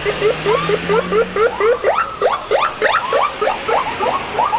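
Emergency vehicle siren on a fast yelp: a quick run of rising whoops, about four a second.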